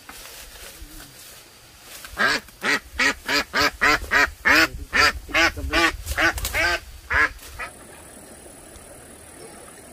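A bird calling in a quick run of about a dozen loud calls, two or three a second, starting about two seconds in and stopping after about five and a half seconds.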